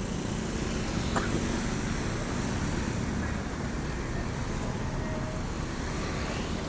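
Steady rumble of road traffic and large buses going by, with no horn melody sounding.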